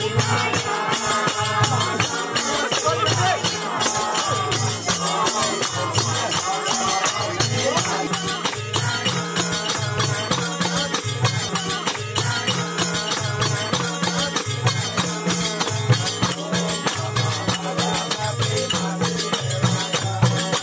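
Lively Nepali folk dance music: a drum beats a steady, repeating rhythm under jingling percussion and voices.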